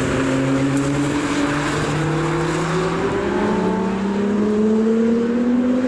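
Aston Martin Vulcan's V12 engine being driven on the circuit, its note climbing steadily in pitch as the car accelerates.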